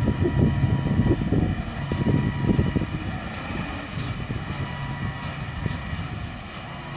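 Claas Xerion 4000 tractor and its hemp-mowing and conveyor machinery, with an accompanying tractor and trailer, running steadily at a distance. There is a steady whine over an uneven low rumble that comes and goes, and it grows a little quieter near the end.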